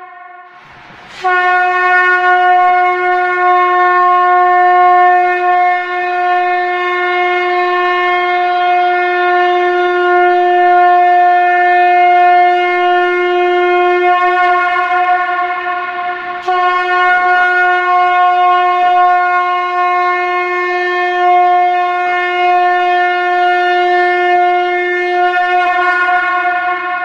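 Conch shell (shankha) blown in long, steady blasts at a single pitch: one blast of about fifteen seconds, then a brief break and a second blast of about ten seconds.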